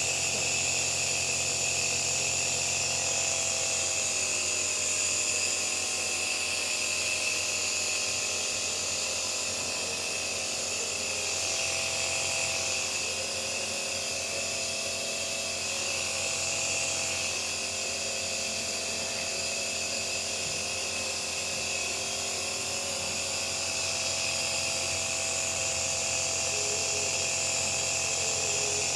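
Electric nebulizer compressor running steadily: a continuous motor hum with a hiss of air and mist.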